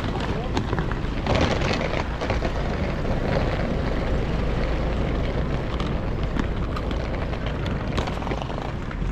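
Street traffic noise with a steady low rumble, mixed with the hard wheels of a rolling suitcase rattling and clicking over paving stones and a road crossing.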